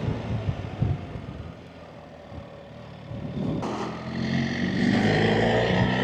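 BMW R 1300 GS Adventure's boxer-twin engine on the move. After a few short thumps and a quieter coast in the first half, it picks up about three and a half seconds in and accelerates, rising in pitch and getting louder.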